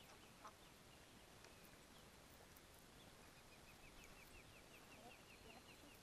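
Near silence: faint outdoor ambience, with a faint, rapid series of high chirps starting about halfway through.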